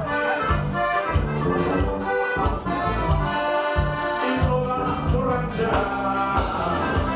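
Live norteño band playing: an accordion carrying the melody over a twelve-string bajo sexto, bass and drum kit keeping a steady beat.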